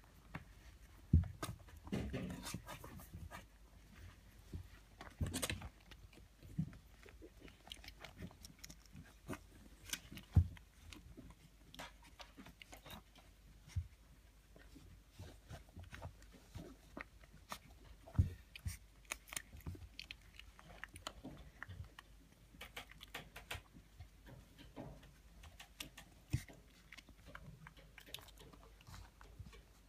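Newborn Bedlington terrier puppies suckling at their mother's teats: irregular wet smacking and sucking clicks, with a few louder bumps now and then.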